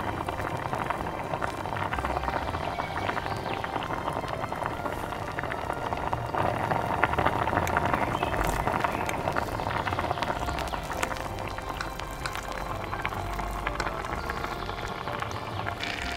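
Milky curry sauce boiling in a miniature clay pot, a steady fine bubbling and crackle.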